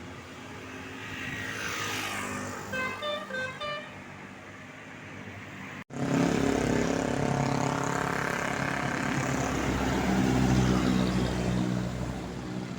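A tour bus's telolet horn, a multi-tone musical air horn, plays a quick run of short notes about three seconds in. After a sudden break near the middle, a bus engine runs loud and close, easing off near the end.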